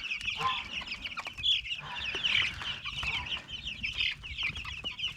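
A flock of chickens clucking and chirping, many short calls overlapping continuously.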